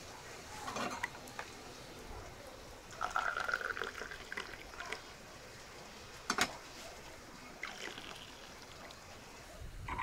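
Liquid pouring in short spells, with a couple of sharp knocks, one about six seconds in and one near eight.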